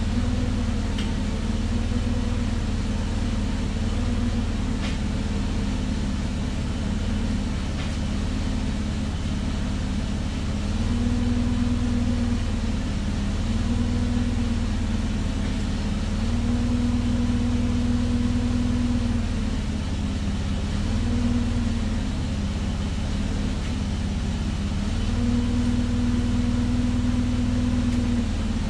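Forklift engine idling steadily, its speed rising several times for one to three seconds at a time before dropping back to idle.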